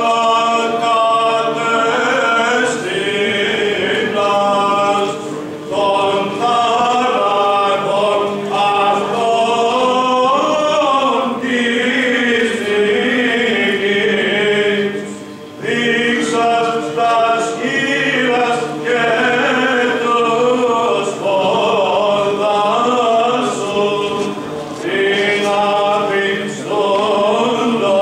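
Male voices singing Orthodox Byzantine chant: a melody moving over a steady held low note (the ison drone). The chant breaks off briefly twice, about five and fifteen seconds in.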